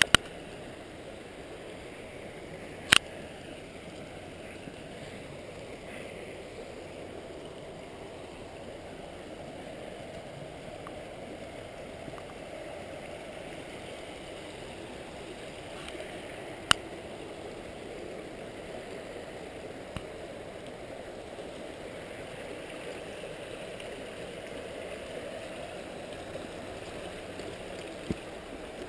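River water rushing steadily over the Hillsborough River rapids, an even rush. A few brief sharp clicks sound over it, about 3, 17 and 28 seconds in.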